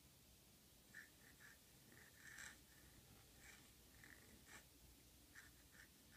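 Faint scratching of a modified Namiki Falcon fountain pen's flexible nib on paper while script letters are written. It comes as a string of short strokes, loudest about two and a half seconds in.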